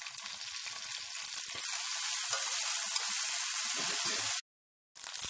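Green chillies and curry leaves sizzling in hot oil in a pan. The sizzle gets louder about a second and a half in, then breaks off abruptly near the end, with a brief return in between.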